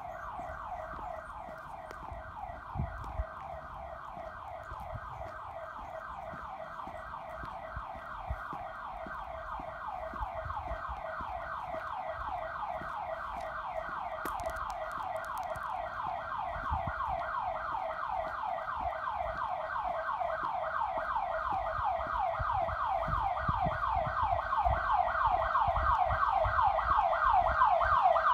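Electronic alarm warbling nonstop in rapid repeating pitch sweeps, several a second, growing steadily louder. Faint low thumps of footsteps and camera handling sit underneath.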